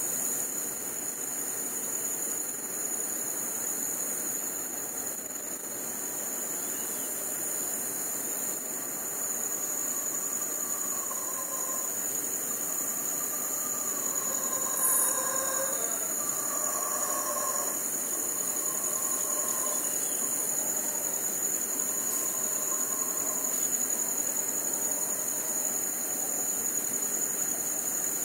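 Steady, high-pitched chorus of crickets trilling. Faint rising-and-falling calls of distant howler monkeys come through from about ten seconds in to a little past twenty.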